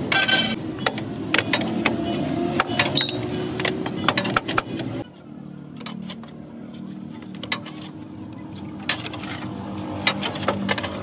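Scattered metal clinks and knocks of hand tools working on a truck's rear drum brake assembly, over a steady background hum that drops off sharply about halfway through.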